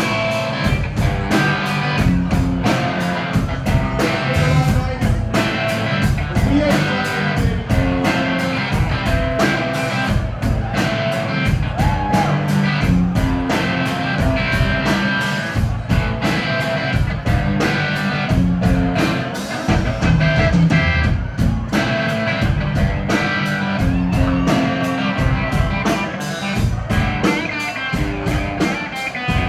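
A rock band playing live on stage: electric guitar, bass and drum kit, with drum hits keeping a steady beat.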